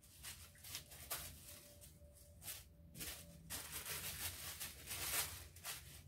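Wax-based watercolour art crayon (Marabu) scribbling on tissue paper: a run of soft, scratchy back-and-forth strokes with light rustling of the paper.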